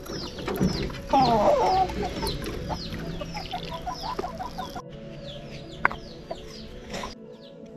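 Chickens clucking, with a steady run of high, falling peeps; the loudest clucking comes about a second in.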